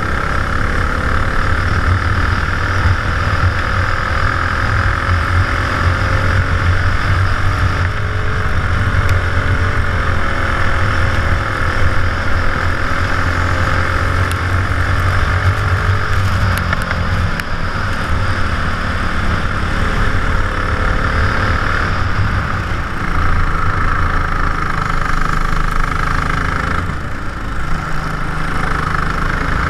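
Racing kart engine running at speed, heard from the driver's helmet-mounted camera, its pitch rising and falling with the throttle through the corners. The engine's note dips briefly about three seconds before the end.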